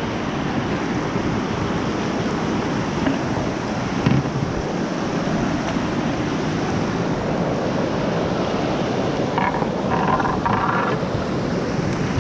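Water rushing steadily over a river weir beside the canoe, with a single sharp knock about four seconds in.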